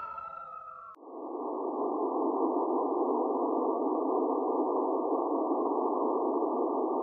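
The last electronic tones of a film-company logo jingle slide downward and cut off abruptly about a second in. A steady, muffled rushing noise with no pitch follows.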